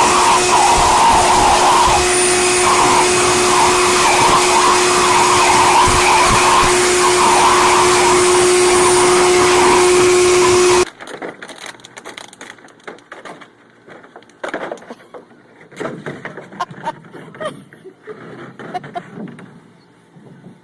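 A blower motor runs loud and steady with a constant whine, then cuts off abruptly about eleven seconds in. After it come quieter scattered clicks and knocks.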